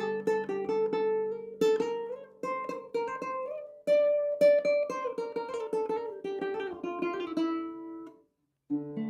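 Kala baritone ukulele, tuned D-G-B-E, played solo with a mellow tone: a flowing line of plucked notes, with a short break about eight seconds in before the playing starts again.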